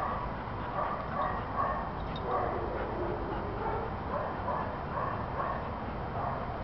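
Faint, scattered dog vocal sounds over a low steady background, with no loud barks.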